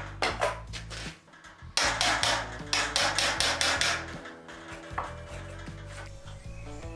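Hammer striking a wood chisel, cutting a joist notch into a pine wall plate: quick blows at about four a second, a short pause about a second in, then a second run that fades out after about four seconds. Background music plays underneath.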